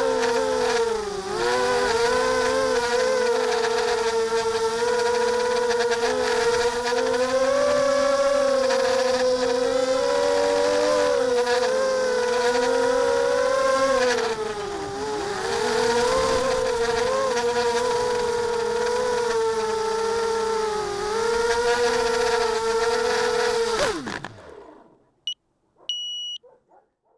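Ghost 300 FPV multirotor's electric motors and propellers whining in flight, the pitch wavering up and down with throttle. About 24 seconds in the whine glides quickly down and stops as the motors spin down, followed by a few short high electronic beeps.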